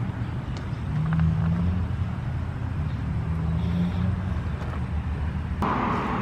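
Low rumble of vehicle engines from nearby road traffic, with a wavering hum, and a louder rush of noise coming in about five and a half seconds in.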